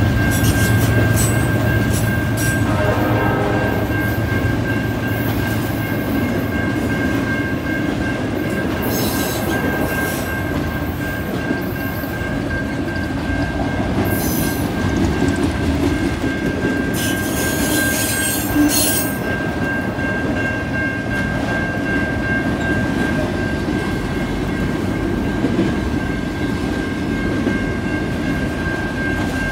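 Freight train of autorack cars rolling past: a steady rumble of wheels on rail with a steady high-pitched squeal, and brief high screeches of wheels on rail about nine, fourteen and eighteen seconds in.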